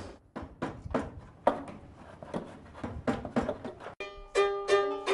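A run of plucked string notes, then, about four seconds in, a violin made from recycled scrap playing held, bowed notes.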